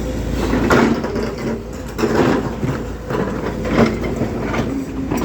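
Volvo crawler excavator with its diesel engine running steadily, overlaid by about six short crunching, grinding clanks of steel against rock.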